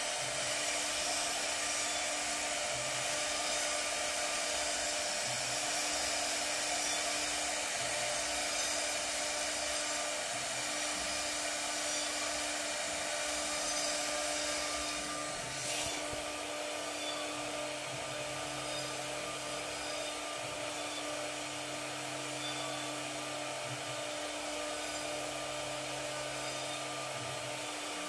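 Steady whirring hiss of an electric motor-driven machine, with a constant hum underneath.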